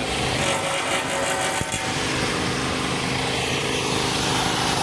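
An engine on a road construction site running steadily, giving an even, pitched hum over a broad noise.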